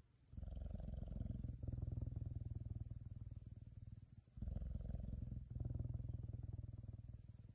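Caracal purring while it suckles on a person's thumb: a low, fast-pulsing rumble in two long stretches, with a short break about four seconds in.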